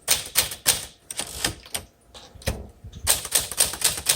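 1952 Smith Corona Silent manual typewriter being typed on in quick runs of key strikes, checking the keys for sluggish ones. There is a short pause a little before the middle, then a faster run about three seconds in.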